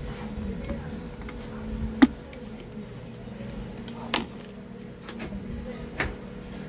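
Tools being handled during soldering work: three short sharp clicks or taps about two seconds apart, the first about two seconds in and the loudest, over a steady low hum.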